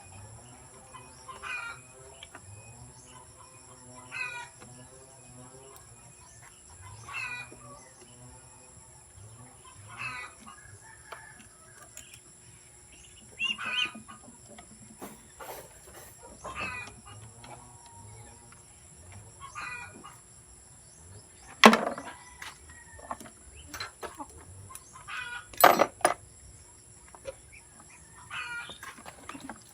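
A bird calling over and over, a short call every two to three seconds, with two sharp knocks in the second half that are the loudest sounds.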